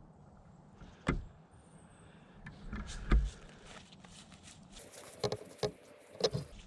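Handling sounds as a large pumpkin is set down on the ground: a sharp knock about a second in, a heavy thud about three seconds in, then a few clicks and knocks near the end.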